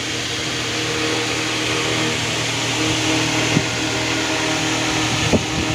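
Steady mechanical hum inside the cab of a parked Tata truck, with two or three light knocks or clicks about three and a half and five seconds in.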